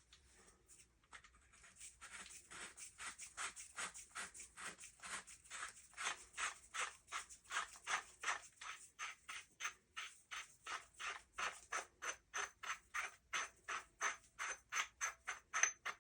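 Fake suppressor being twisted off the threaded barrel of a Panser EGX 500 bullpup shotgun: a steady series of short metal-on-metal scraping rasps, about three a second, as the threads grind and mar the barrel.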